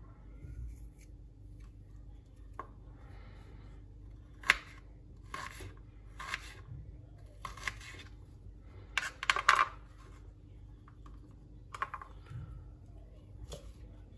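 Small kitchen knife cutting fresh ginger into small pieces on a bamboo cutting board: scattered short cuts and taps of the blade on the board, a few seconds apart, with a quicker cluster in the middle, over a faint steady hum.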